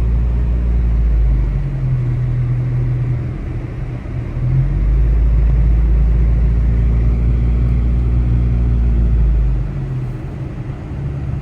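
Car engine and road rumble heard from inside the moving car: a deep, steady drone that eases about a second and a half in, swells again around five seconds, and drops back near the end.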